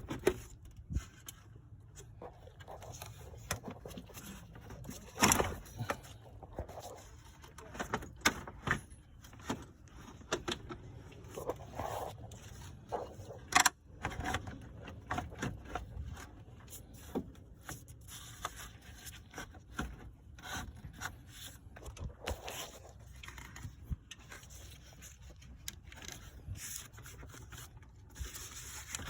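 A car's electric radiator cooling fan and its shroud scraping and rubbing against surrounding parts as it is worked up out of the engine bay, with irregular clicks and knocks, two of them louder, about 5 and 14 seconds in.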